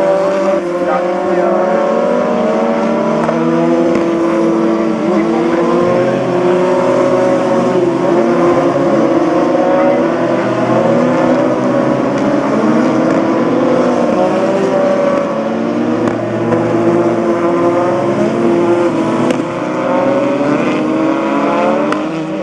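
Several open-wheel single-seater racing cars driving past at speed, their engines revving high, rising and falling in pitch with gear changes as they accelerate and brake through the corners, the sounds of several cars overlapping, over a steady hiss from tyres on the wet track.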